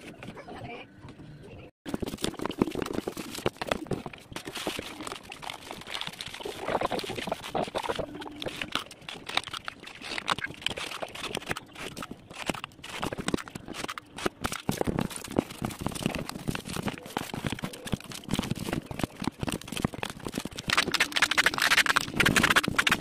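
Packing noise: irregular rustling, knocking and crackling as a plywood crate is handled and wrapped in plastic stretch film and packing tape, loudest near the end.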